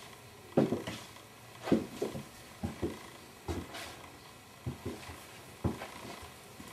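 Footsteps on a bare wooden floor: sharp, irregular thuds about once a second, a few of them in quick pairs.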